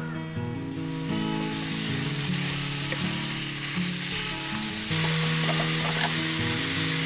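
Ground meat sizzling in a frying pan as a wooden spoon stirs it. The sizzle starts about half a second in, under background music with held low notes.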